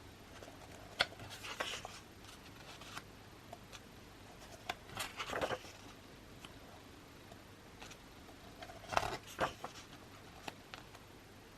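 Pages of an album photo book turned by hand: faint paper rustles and light taps, the loudest about five seconds in and again about nine seconds in.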